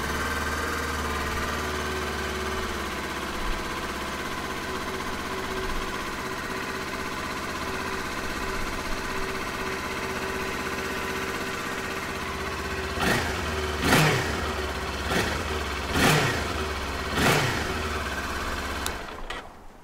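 Kawasaki Ninja 400's parallel-twin engine idling steadily on its stock exhaust, then revved in five short throttle blips, each rising and falling, before the sound stops near the end.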